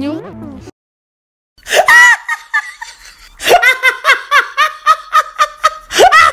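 High-pitched laughter after a brief silence: a first burst, then a run of short, evenly spaced 'ha' pulses, about four a second.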